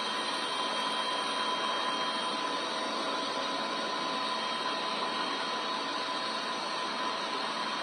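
Helicopter turbine engine running steadily: an even rushing noise with a constant high whine.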